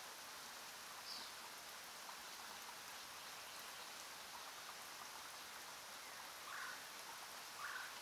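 Faint, steady gritty hiss of a pencil lead scratching across paper while writing, with a few short, sharper scrapes near the end.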